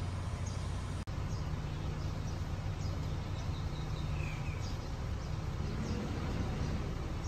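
Birds chirping in short repeated calls over a steady low hum of background noise, with a brief dropout about a second in.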